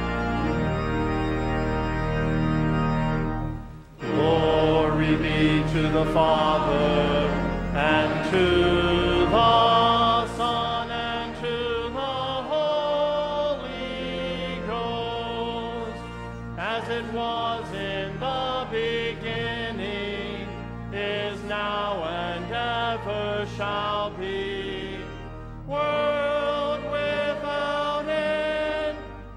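Church organ holding chords, then about four seconds in a choir begins singing a sung response with organ accompaniment, phrase by phrase with short breaks between.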